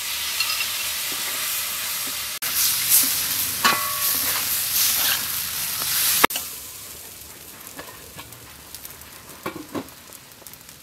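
Raw rice sizzling loudly as it is stir-fried in a hot wok, with a spatula scraping and stirring against the pan. About six seconds in the sound cuts to a much quieter bubbling with faint crackles from a large pot boiling over a wood fire.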